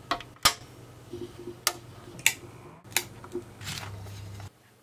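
Sharp clicks of a bench power supply's rocker switch and a plastic cassette case being handled, about six in all, the loudest about half a second in, over a low steady electrical hum that stops shortly before the end.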